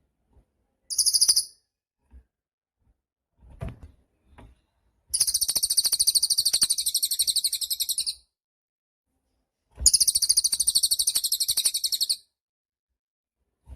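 Cililin songbird singing: a short high burst about a second in, then two long, rapid, high-pitched trills of about three seconds and two and a half seconds, with faint low thumps in between.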